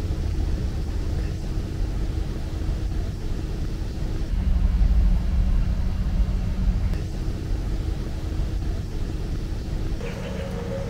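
Low, steady road rumble of the NIO ES7 electric SUV on the move, with a faint steady hum over it that shifts pitch a couple of times.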